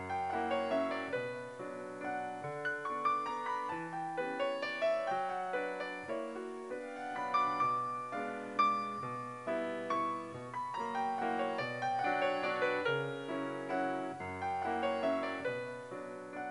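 Background piano music, a steady flow of single notes and chords.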